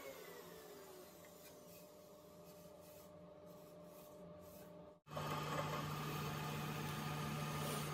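A power tool's whine falling in pitch as it spins down and fades within the first second, then quiet shop noise. About five seconds in, after a cut, a bench drill press motor runs with a steady low hum as the bit sits in MDF.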